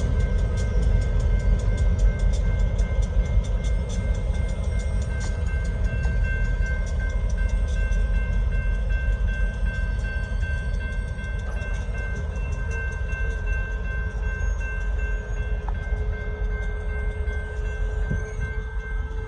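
Local freight train moving slowly in reverse past a grade crossing: a steady low rumble, with a fast run of regular clicks in the first half that fades out, and a few steady high tones over it.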